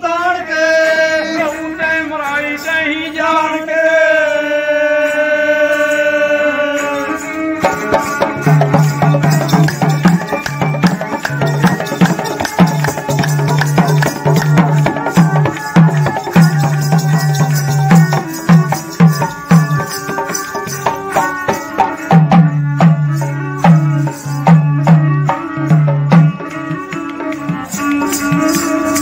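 Punjabi folk music: a long held melodic line for about the first seven seconds, then a two-headed dholak drum comes in with a fast rhythm of deep bass strokes and sharp slaps, under a bowed string instrument.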